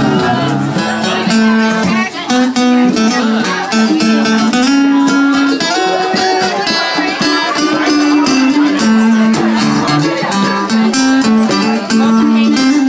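Live band playing a song, led by guitar, heard from among the crowd in a small bar.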